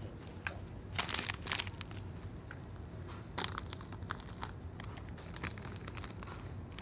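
Crinkling and rustling of plastic bags of wrapped candies in irregular bursts, over a steady low hum.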